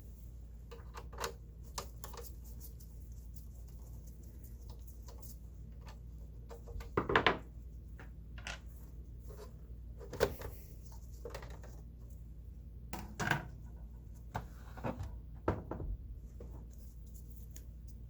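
Scattered clicks, taps and scrapes of a Dell OptiPlex 7010 USFF computer's case and parts being handled, with the loudest clatter about seven seconds in, over a steady low hum.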